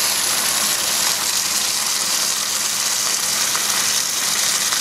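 A steady stream of flood coolant from a Loc-Line nozzle on a 1/2-inch hose pouring and splashing into a bucket of foaming coolant, a constant hissing splash. This is the single-nozzle flow test of the machine's coolant system running at full flow.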